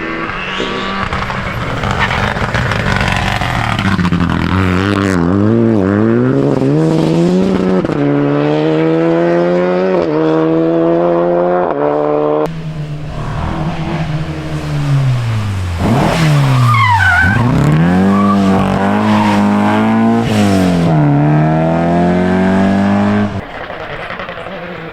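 Rally car engine revving hard and dropping back again and again through gear changes, its pitch diving steeply and climbing again about sixteen seconds in. The engine sound falls away shortly before the end.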